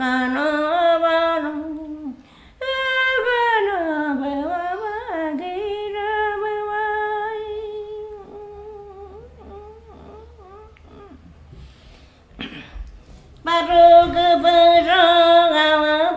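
An elderly Shipibo-Konibo woman humming a wordless, chant-like melody in long held notes that slide up and down in pitch. She trails off to a faint murmur about halfway through, then comes back in strongly near the end.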